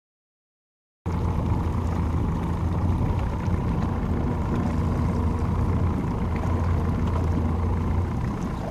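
Boat's outboard motor idling steadily, with a low, even hum that starts abruptly about a second in.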